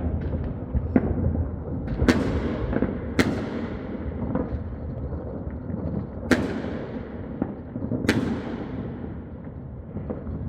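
Fireworks exploding: four loud, sharp bangs, each trailing off in a fading echo, among smaller pops and a steady low rumble of more distant bursts.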